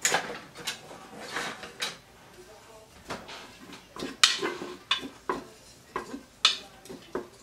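A spatula knocking and scraping against the inside of a Moulinex Cookeo multicooker's cooking bowl: about a dozen irregular sharp taps with short scrapes between them.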